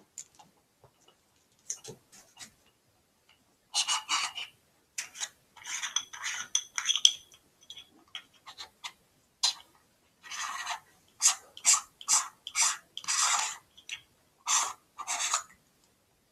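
Packaging being handled during an unboxing: irregular rustling and rubbing of wrapping and boxes in short bursts, with a few faint squeaks in the middle.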